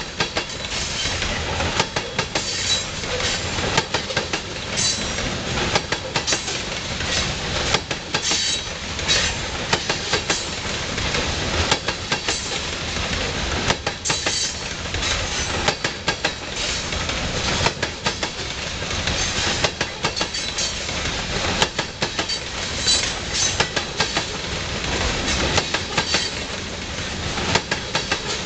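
Loaded covered hopper cars of a grain train rolling past, their steel wheels clacking over the rail joints in repeated sharp clicks over a steady rolling noise.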